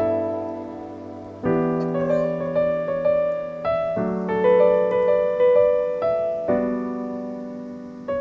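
Slow background piano music: single notes and chords struck one after another, each ringing out and fading, with a long fade in the last couple of seconds.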